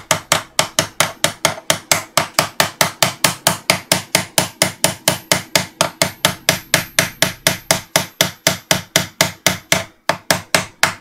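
A hammer tapping the end of a screwdriver at about four taps a second, each a sharp metallic knock, driving a stuck clamp along inside a car audio amplifier's metal case. There is a brief pause near the end before the tapping resumes.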